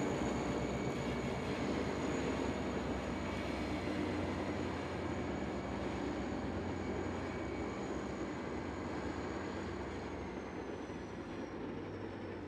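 Hauled delivery train carrying the new GTX-A A01 electric multiple unit, its wheels running steadily along the rails as the sound slowly fades. A thin high whine dips in pitch about ten seconds in.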